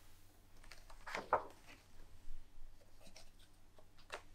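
Pages of a large hardcover photo book being turned by hand: a soft paper swish and rustle about a second in, then quieter handling of the pages.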